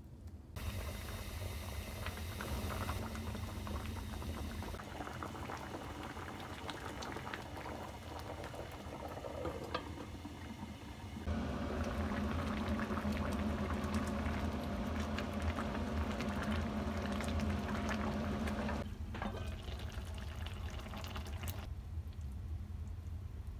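Pot of kimchi and pork belly braise boiling, a busy bubbling that changes level abruptly at several edits and is loudest in a stretch past the middle.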